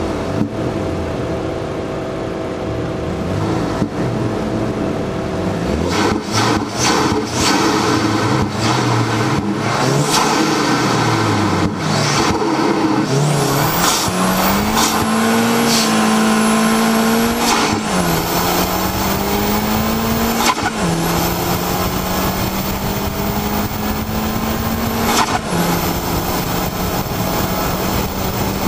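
Onboard sound of a vehicle's engine under hard acceleration over a steady rush of wind and road noise. The engine's pitch climbs about halfway through, then drops back three times as it shifts up through the gears.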